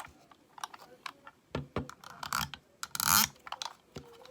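Small plastic fidget cube being handled: irregular light clicks and taps, with a short scrape about three seconds in as a small piece slides onto the cube.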